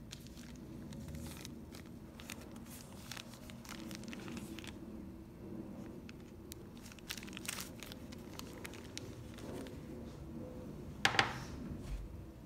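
Clear plastic packaging bag around a foam-wrapped wallet crinkling as it is handled, in scattered crackles, with the loudest crinkle about a second before the end. A brief soft thud follows as the package is laid down on the rug.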